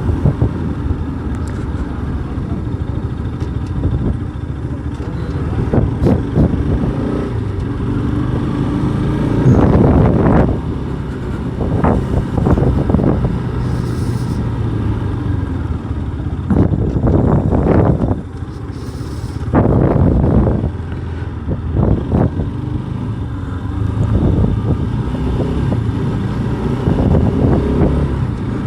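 Motorcycle engine running while riding, with louder rushes of wind noise several times.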